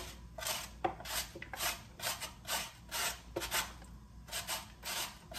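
Carrot being grated on a metal box grater: rhythmic rasping strokes, about two a second.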